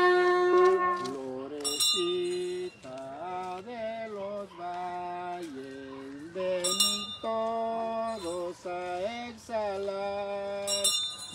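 The melody of a procession hymn carries on between sung verses, in held notes that step up and down. A bright metallic clink sounds three times, about every four to five seconds.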